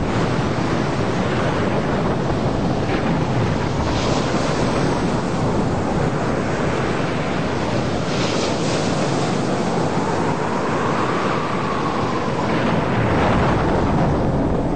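Stormy wind blowing over crashing sea waves, a steady loud rush with surges of spray-like hiss about four and eight seconds in. A faint tone rises and falls over it near the end.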